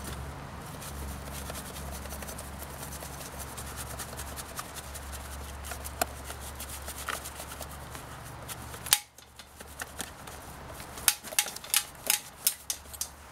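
Stiff-bristled hand brush scrubbing a soapy trike frame: scratchy rubbing with scattered clicks, then a run of sharp knocks near the end as the brush strikes the frame. A steady low hum stops suddenly about nine seconds in.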